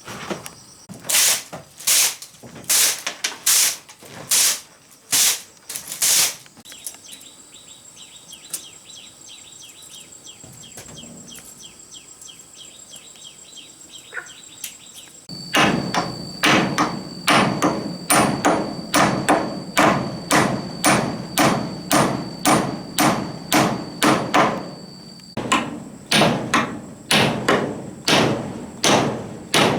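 Repeated hard blows on wood, about two a second: a short run, a quieter stretch of fine rapid ticking in the middle, then a longer steady run to the end. A steady high tone sits in the background.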